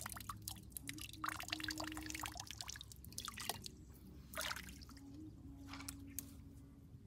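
Water dripping from wet hands and small, irregular splashes in shallow, muddy water as hands move in and out of it.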